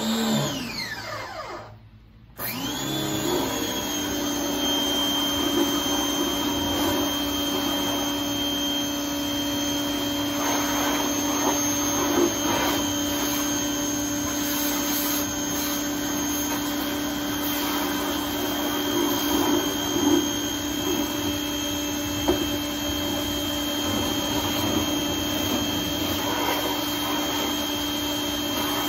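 Electric pressure washer motor starting up, winding down with a falling whine and stopping about two seconds in, then starting again and running steadily with a high whine over a low hum while its jet sprays a plastic trash can.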